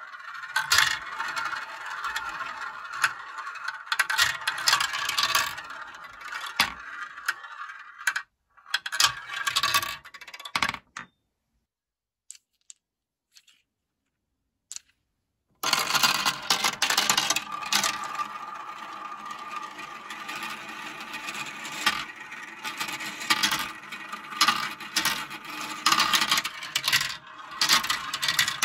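Plastic balls rolling, rattling and clicking through a Kumikumi Slope plastic marble run, circling the funnel bowls and dropping through the tracks. The sound stops for about five seconds midway, leaving only a few faint clicks, then the rolling and clicking start up again.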